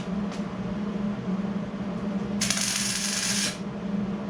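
A welder laying one short tack weld on a sheet-metal patch panel: about a second of dense crackling sizzle starting just past halfway, over a steady low hum.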